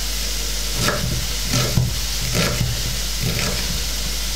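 Grated carrot and onion frying in oil in a pan, a steady sizzle, with a knife chopping onion on a wooden cutting board, a few irregular knocks.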